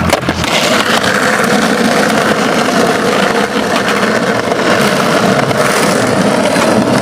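Skateboard wheels rolling on pavement, a steady rough rumble with no break.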